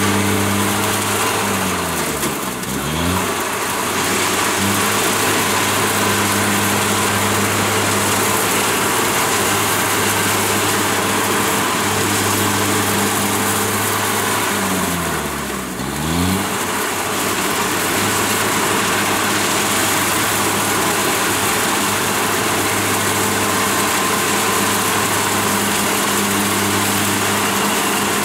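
Kubota DC70 Plus crawler combine harvester running under load, its diesel engine and threshing gear making a steady loud drone. Twice, about two seconds in and again about fifteen seconds in, the engine note dips and picks back up.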